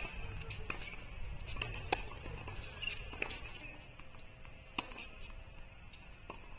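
Sporadic sharp clicks of a tennis ball being struck and bounced on a hard court, the loudest about two seconds in, over a faint steady high-pitched hiss.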